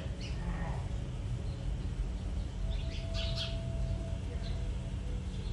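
A few short, high bird chirps over a steady low rumble.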